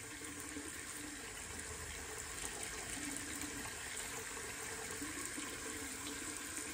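Tap water running steadily into a bathroom sink.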